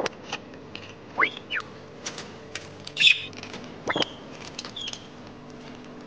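A baby chick peeping three times, each peep a thin call sweeping sharply upward, with short chirps and quick clicks from a budgerigar between them.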